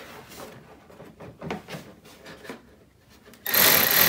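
Light handling clicks and knocks, then near the end a cordless drill starts up and runs at speed, a loud hiss with a thin high whine.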